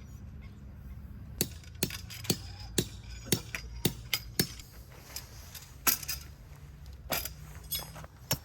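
A series of sharp metallic knocks and clinks, about ten of them, mostly half a second apart with a gap near the middle, some ringing briefly.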